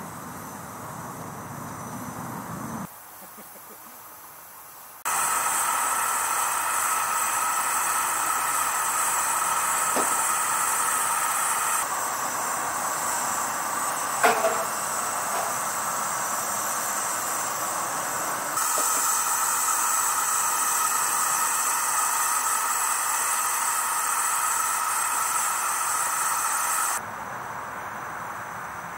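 Steam hissing steadily from a 1916 Ransomes, Sims & Jefferies traction engine, starting suddenly a few seconds in and shifting abruptly in level several times. A single sharp click comes about halfway through.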